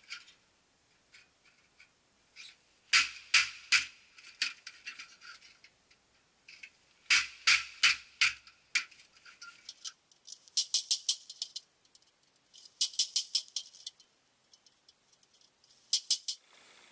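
A hatchet striking sheet-metal ducting, with sharp metallic knocks in clusters of several quick blows. Later come faster runs of lighter metal taps.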